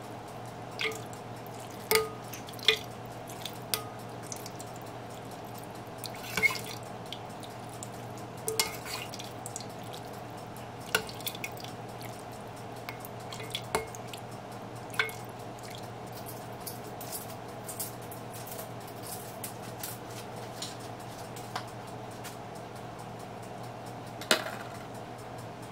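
Soup being ladled into a bowl of noodles: scattered drips and splashes of broth and light taps of the ladle against the bowl and pot, over a steady low hum.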